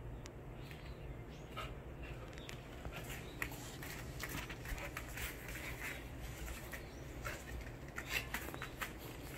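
A golden retriever puppy's claws ticking on the floor as she walks about, many small irregular clicks that grow busier from about three seconds in, over a faint steady room hum.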